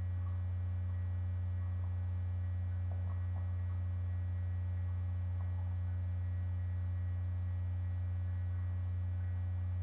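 Steady electrical mains hum, a constant low drone with fainter overtones, with a couple of very faint ticks about three seconds in.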